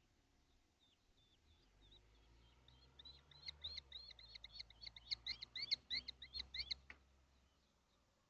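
Kestrel calling: a rapid series of sharp, repeated notes, about four a second, faint at first, then loud from about three seconds in, and stopping abruptly about seven seconds in, over a low rumble.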